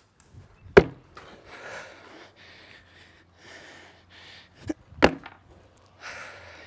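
Sneakered feet landing on a wooden plyometric box during box jumps: a sharp wooden thud about a second in, then two more close together around five seconds. Hard, rhythmic breathing between the landings.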